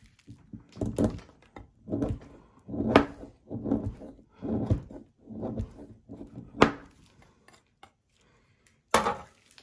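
A knife shaving and cutting into a block of beeswax on a cutting board, in a series of short scraping strokes with a couple of sharper knocks of the blade against the board. The cutting pauses for a couple of seconds near the end.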